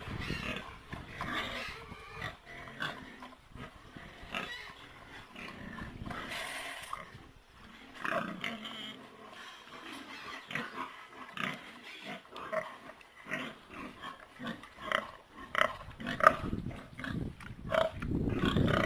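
Pigs grunting and squealing in a pen, a run of short, irregular calls that grows louder in the last few seconds.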